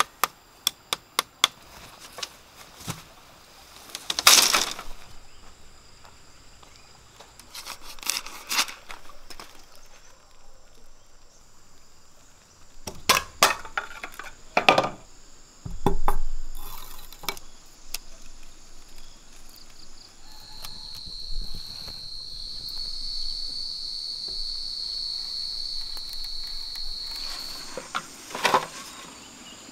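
Green bamboo being handled and split with a machete: sharp knocks and cracks, with a quick run of light clicks at the start. Insects keep up a thin, steady high tone throughout, and a louder steady insect drone sounds for several seconds in the second half.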